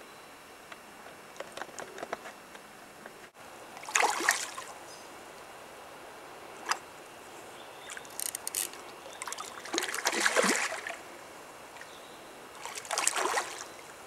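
A hooked trout splashing at the surface close to the bank while being played on a fly rod, in about four bursts of splashing, the loudest about four seconds in and near ten seconds.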